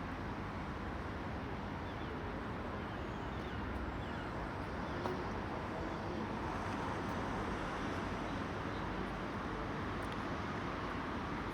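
Steady outdoor city background noise, an even rumble of distant traffic with no distinct events.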